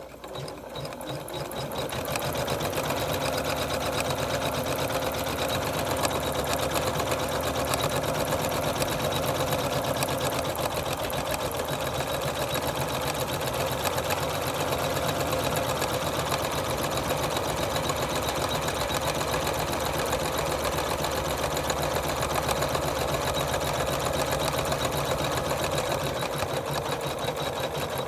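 Janome Memory Craft 9850 embroidery machine starting up and stitching a design, building up speed over the first couple of seconds and then running at a steady, fast, even stitching rhythm.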